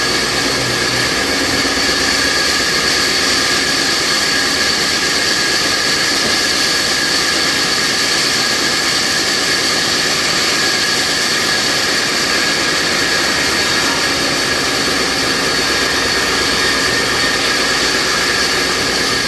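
Sawmill horizontal band saw running, a loud, even machine noise with a steady high-pitched whine that does not change.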